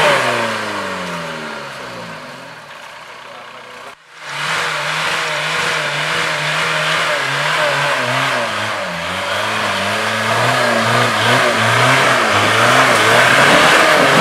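Suzuki Samurai 4x4 engine working under load on a steep, rutted climb, its revs falling away over the first few seconds. After a sudden cut about four seconds in, the revs rise and fall repeatedly as the driver works the throttle, growing louder near the end.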